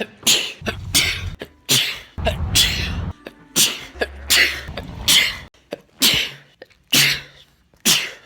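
A man sneezing over and over in quick succession, about ten sharp sneezes in eight seconds, each a sudden burst with a short breathy tail. The background hum changes abruptly between them, as separate recordings are cut one after another.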